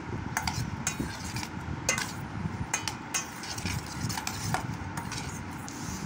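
Metal spoon stirring grapes in a stainless steel bowl: irregular clinks and scrapes of spoon against the steel as the fruit is tossed in dressing.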